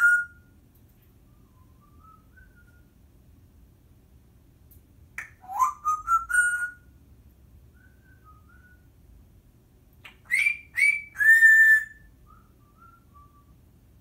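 Timneh African grey parrot whistling: a rising whistle with a few clicks about five seconds in, then three loud whistles near the end, the last one held, with soft short notes in between.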